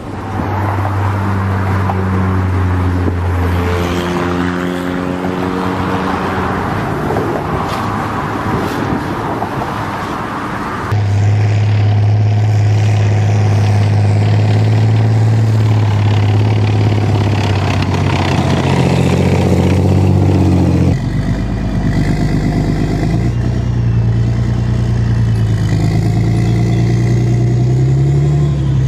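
Motorboat engine running, then about 11 seconds in a cut to a tank's engine running steadily, shifting pitch about twenty seconds in.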